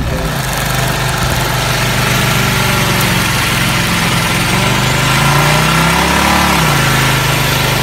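A vehicle engine held at high revs during a burnout, its rear tyre spinning on pavement with a dense hiss of tyre noise. The engine climbs in pitch about five seconds in and falls back about a second and a half later.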